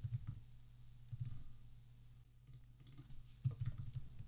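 Faint computer keyboard typing: a few keystrokes at the start, a couple about a second in, a pause, then more near the end, over a faint low hum.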